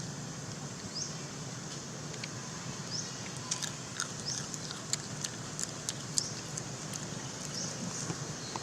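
Steady outdoor background hiss with short, high, rising chirps repeating about once a second, and a run of small sharp clicks and taps through the middle.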